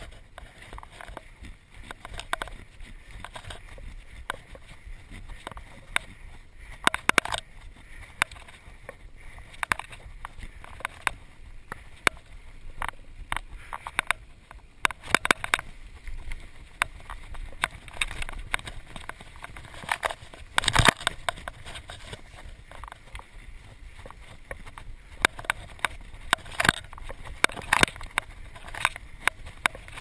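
Mountain bike riding fast along a dirt forest singletrack: a steady rushing of the tyres on the trail, with frequent sharp clacks and rattles as the bike jolts over bumps. The loudest knock comes about two-thirds of the way through.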